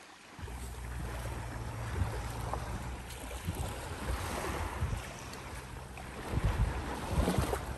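Wind buffeting the microphone, with a low rumble that comes in about half a second in and a steady hiss, swelling in gusts near the middle and again near the end.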